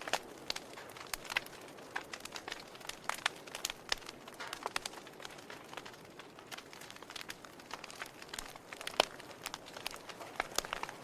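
Wood fire crackling in a fireplace: many irregular sharp pops and snaps over a soft hiss, with one louder pop about nine seconds in.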